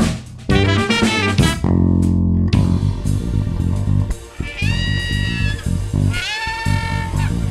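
Jazz-fusion band playing with bass and drums. A quick run of short notes gives way to a held low bass note, then a steady groove with two long high notes that bend up at the start and slide down at the end.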